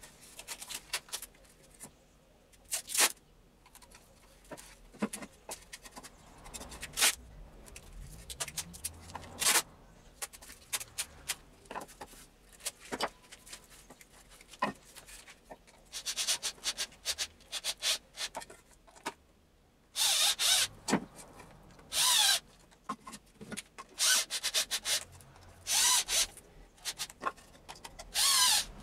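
Hands rubbing, scraping and knocking a plastic board and wood pieces together, with scattered clicks. In the second half an electric drill runs in several short bursts of about a second each.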